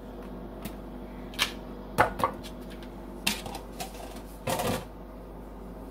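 Thin plastic deli container clicking and crackling as cut-up rotisserie chicken is shaken out of it into a bowl: a dozen or so irregular sharp taps, with a longer crinkle about four and a half seconds in.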